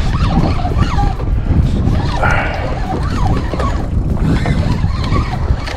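Heavy, fluttering low rumble of wind and handling noise on a body-worn camera's microphone, the camera rubbing against the angler's shirt.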